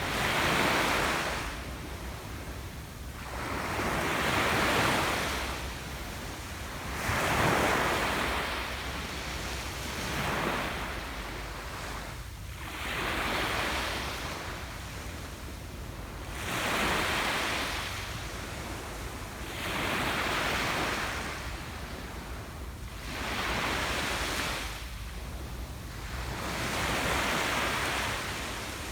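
Ocean waves breaking on a beach, surging and washing back in a slow rhythm, about one wave every three to four seconds.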